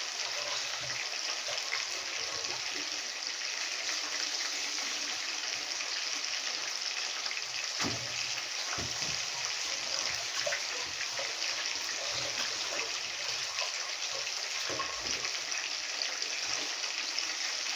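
Water running steadily from a kitchen tap while rice is rinsed under it, with a few light knocks.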